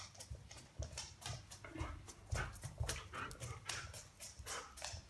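A husky's claws clicking on a laminate floor as it moves about, a quick, irregular run of taps.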